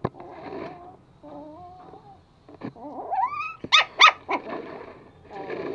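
Two Pomeranian puppies play-fighting, growling and whining, with a rising whine and then two sharp high yips about four seconds in.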